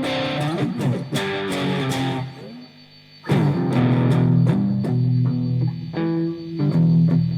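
Electric guitar played through a Marshall Valvestate 2000 AVT50 amp fitted with a newly replaced ECC83 preamp tube, with a distorted tone. Notes and chords ring, stop briefly a little over two seconds in, then louder chords come back about three seconds in.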